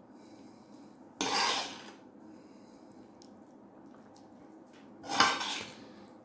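Metal spoon scraping against a sauté pan twice, each scrape about half a second long, about a second in and again near the end, while scooping rice-and-mushroom stuffing out of the pan.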